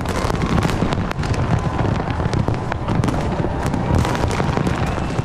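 Large aerial fireworks display with many shells bursting close together: a continuous rumble of booms with sharp cracks and crackling throughout.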